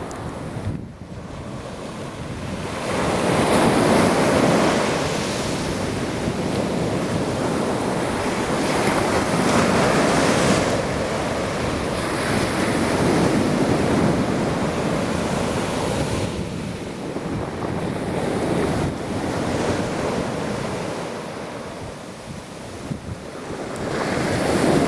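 Storm surf on the sea: waves breaking and rushing in, swelling and ebbing every few seconds, with wind buffeting the microphone.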